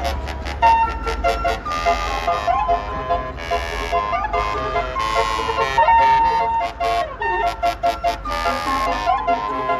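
Bus 'telolet Basuri' musical air horn playing a tune: several horn tones sounding together in quick changing notes, with swooping rises and falls in pitch and rapid stuttering blasts, over a steady low rumble.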